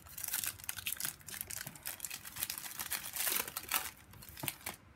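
Foil wrapper of a trading-card pack crinkling and crackling as it is torn open and pulled off the stack of cards.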